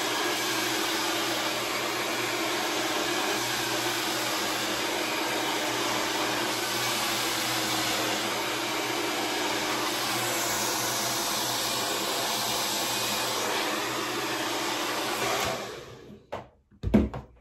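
Handheld hair dryer blowing steadily, switched off about fifteen and a half seconds in; a short thump follows about a second later.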